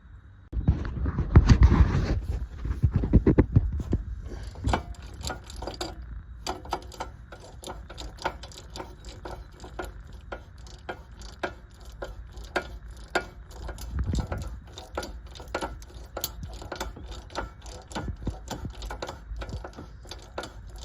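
Hand ratchet wrench clicking as the nuts on a Mazda Miata's front shock absorber mount are turned off, several clicks a second. A loud burst of clunking handling noise comes in the first few seconds.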